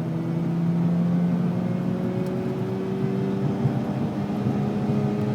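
Mazda RX-8's two-rotor Renesis rotary engine pulling under load in gear, heard from inside the car, its pitch rising slowly and evenly as the revs build.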